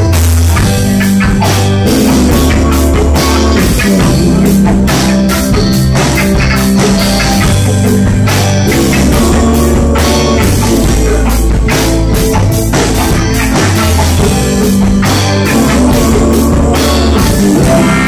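Live rock band playing loudly: drum kit, electric guitar and bass, with a bass line stepping from note to note under the drums.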